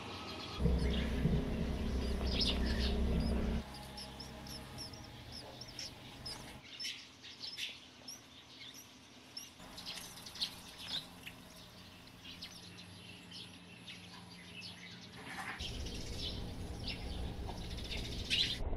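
Sparrows chirping in a nest box: many short, high cheeps scattered throughout, the begging calls of nestlings being fed. A low rumble sounds for the first few seconds.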